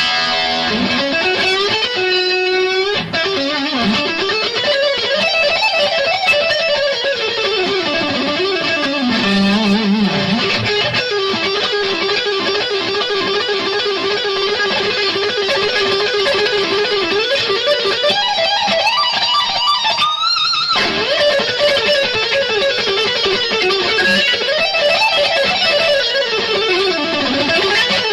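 Electric guitar solo: fast runs of notes that sweep up and down in pitch, over and over.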